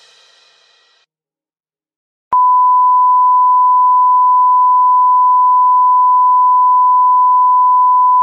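Electronic music fades out to silence; about a second later a loud, steady pure beep tone starts abruptly and holds unchanged, like a sine-wave test tone.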